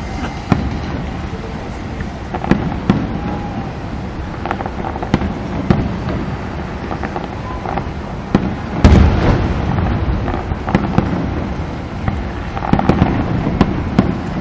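Aerial fireworks bursting: sharp bangs at irregular intervals over a steady low rumble, the loudest about nine seconds in.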